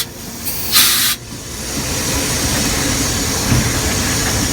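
Steam locomotive in the cab: a short sharp burst of hissing about a second in, then steady running noise.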